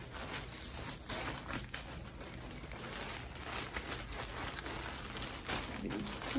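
Clothes being handled and folded: steady rustling of fabric with small irregular crinkles.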